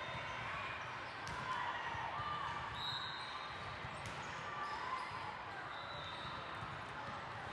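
Indoor volleyball hall: a steady din of background voices, with the occasional sharp thump of a volleyball being hit or bouncing on the court and a few short high squeaks.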